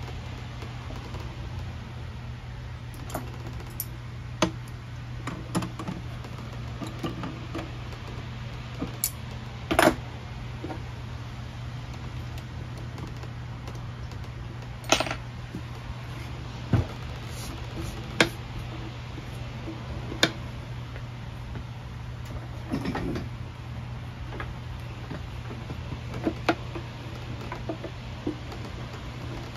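Scattered light clicks and knocks, a few per few seconds, from hand tools and parts handled against the turbine sprayer's metal case and the workbench. A steady low hum runs under them.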